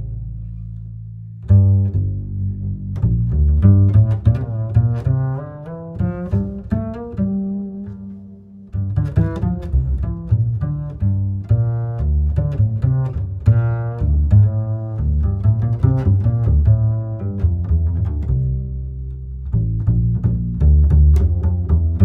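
Background music: plucked and bowed low strings, with a bass line and many quick plucked notes.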